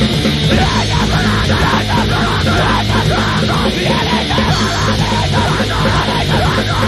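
Loud grindcore: dense, heavily distorted guitar and drums with yelled vocals over them, at a steady, unbroken level.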